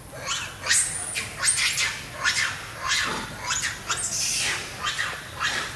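Long-tailed macaques screaming during a chase: a rapid run of about a dozen short, shrill calls, one on the heels of the next, with a higher squeal about a second in.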